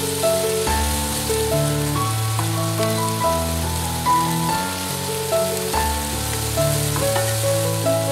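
Background music with a melody and bass line, over shrimp sizzling steadily in a hot oiled frying pan.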